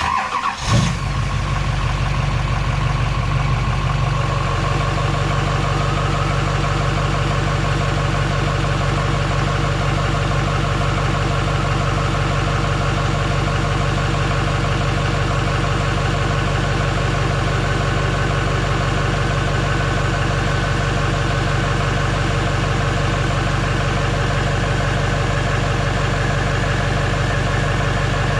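A truck engine comes in suddenly with a brief burst of noise in the first second, then idles steadily. A faint whine slowly rises in pitch over the following seconds.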